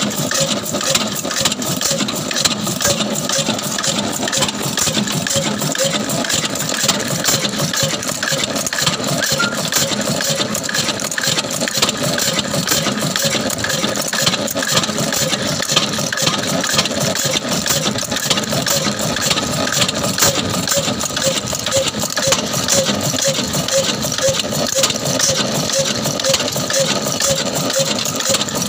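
An 18 hp desi-built horizontal stationary diesel engine of Ruston Hornsby pattern, running steadily with its flywheel turning, at a fast, even beat.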